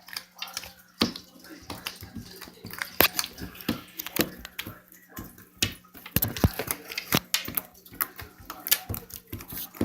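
Homemade slime being squished and worked by hand, giving irregular wet, sticky clicks and pops several times a second.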